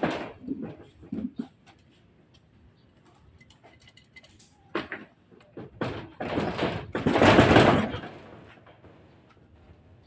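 Light clinks and knocks as metal parts of a truck air dryer are handled. Then, from about six to eight seconds in, a couple of seconds of loud scraping as the metal valve housing is dragged and turned across cardboard.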